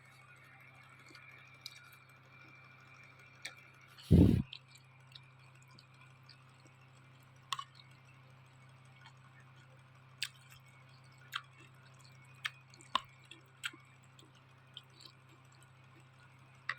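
Close-up eating sounds of a person eating a bowl of noodles: scattered small sharp mouth and chewing clicks over a steady low hum, with one loud, short, low thump about four seconds in.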